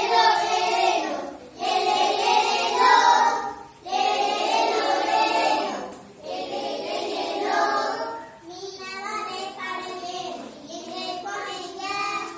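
Group of children singing a Tamil action song together, in long phrases of about two seconds with short breaks between; about eight seconds in, the phrases turn shorter and choppier.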